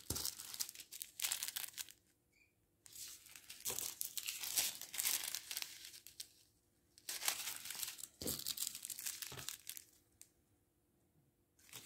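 Thin plastic sachets of round diamond-painting beads crinkling as they are handled, in three spells with short pauses between.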